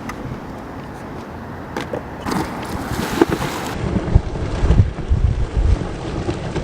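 Hiss of water spraying and splashing, probably from a board going through rainwater, then a heavy buffeting rumble of wind on the microphone from about four seconds in.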